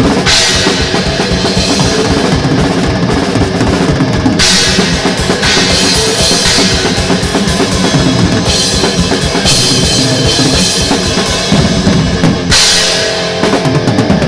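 Thrash metal song with fast, driving drums: rapid bass drum strokes under the band, with crash cymbal hits every second or so.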